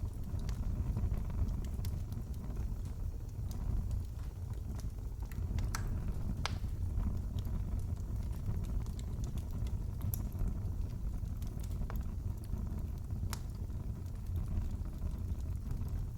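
Fireplace fire crackling: a steady low rumble of burning with scattered pops and snaps, the sharpest about six and a half seconds in.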